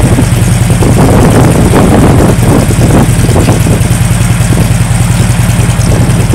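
Harley-Davidson Electra Glide touring motorcycle's V-twin engine idling steadily close by.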